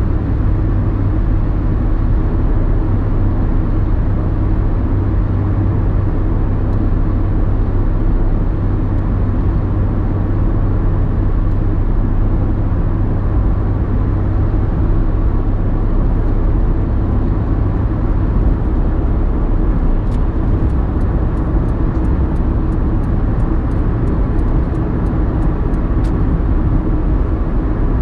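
Road noise inside a car cruising on a motorway at a steady 60 mph: a continuous low rumble of tyres and engine, even in level.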